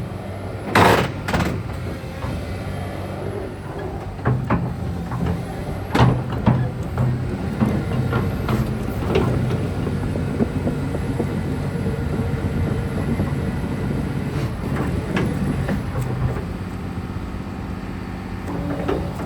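Hyundai Robex 300 LC-9A excavator's diesel engine running steadily, with several sharp metal clanks and knocks as the machine is operated.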